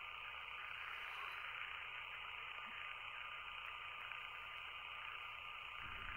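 Steady background hiss with a faint constant high whine, and a soft low bump near the end.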